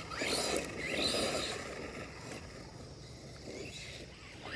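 Losi Baja Rey 2.0 electric RC truck running, its motor whining up in pitch twice in the first second and a half as the throttle is blipped, then running quieter.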